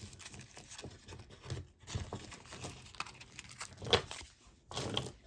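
A paper tag being pulled off a strand of acrylic beads: light crinkling and tearing of the paper mixed with soft clicks of the plastic beads, with a couple of sharper clicks near the end.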